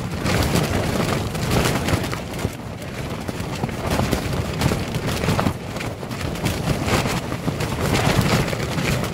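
Strong gusting wind shaking a tent, heard from inside: the tent fabric flaps and rattles with many quick snaps, swelling and easing with the gusts.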